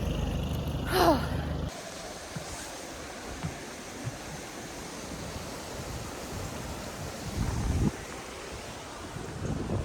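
Wind buffeting the microphone outdoors: a steady rushing haze with now-and-then low thumps of gusts, the strongest near the end. It starts with a short, louder low rumble and a brief falling sound that cut off suddenly under two seconds in.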